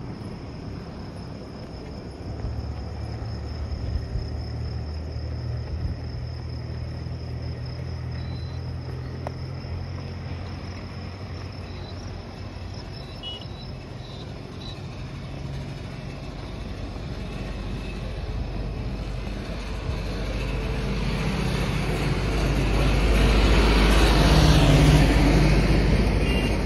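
Insects chirp steadily over a low hum in the first half. Then a road vehicle approaches and passes close by, growing louder to a peak near the end and easing off.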